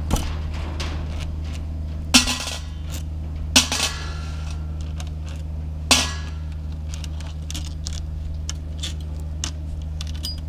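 Metal clanks and clinks of a hedge trimmer's steel blade bar and loose parts being handled on a workbench, with three louder clatters that ring briefly in the first six seconds and small ticks between. A steady low hum runs underneath.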